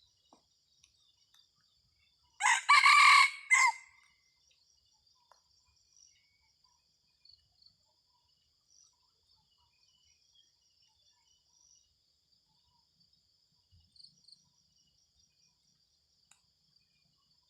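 Red junglefowl rooster crowing once, a short loud crow of a little over a second, over a steady high drone of insects.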